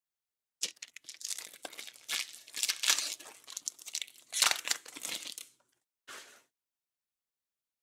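Baseball card pack's plastic wrapper being torn open by hand and crinkling, in a busy run of crackly rustles for about five seconds, with one short rustle after a brief pause.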